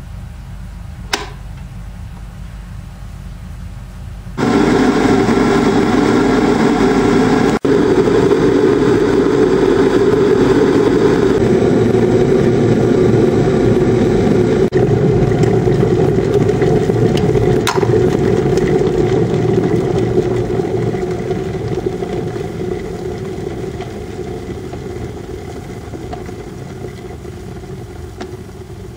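An electric water boiler heating water. A single click comes about a second in, then a few seconds later a loud, steady rumbling hiss of water coming to the boil starts suddenly and slowly dies away over the last third.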